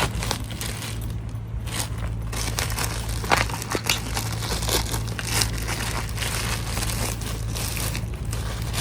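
Rustling and crinkling of something being handled, with scattered small clicks, over a steady low hum.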